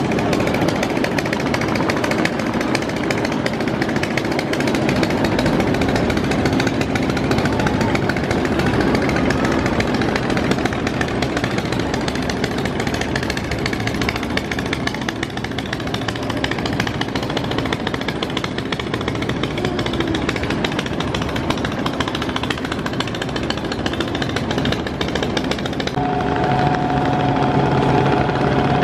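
Large multi-deck passenger river launches under way: their diesel engines run with a loud, steady noise, mixed with water rushing along the hulls. About 26 seconds in, a steady engine hum with a clear held tone comes in as one launch passes close.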